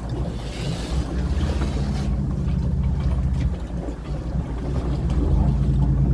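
Fishing boat's engine running steadily with a low drone.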